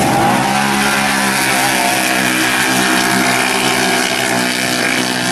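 Side-by-side UTV engine running under throttle on a dirt track, a loud, fairly steady drone that holds its pitch.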